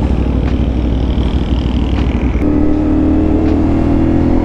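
Motorcycle engine running under way, rough and uneven at first, then settling into a steady drone about halfway through; near the end its pitch steps down and then holds steady again.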